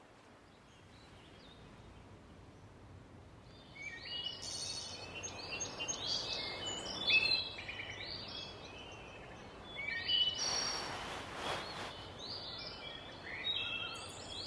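Small birds chirping: a quick, busy run of short high chirps that starts about four seconds in after a faint hiss. A brief soft rustle sounds about ten seconds in.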